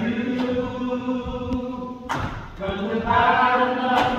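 Church choir singing a slow gospel chorus, the voices holding long notes, with a brief break about halfway through before the next, louder phrase begins.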